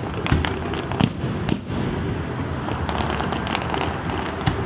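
Fireworks going off: several sharp bangs in the first second and a half, then a run of fast crackling in the middle, and another bang near the end, over a steady low rumble.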